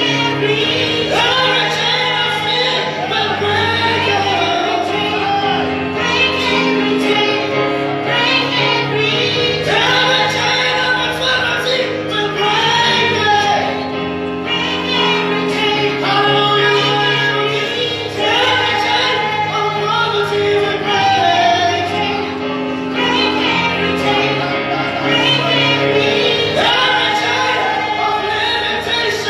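A woman singing a gospel worship song into a microphone, amplified through the church PA, over sustained instrumental chords and a steady bass.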